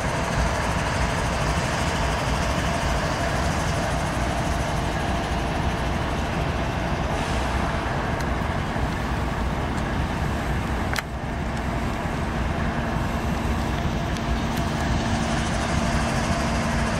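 Several CSX GE diesel-electric freight locomotives passing close by, their engines running under a steady noise of wheels on rail. A steady hum joins about six seconds in, and there is a single sharp click about eleven seconds in.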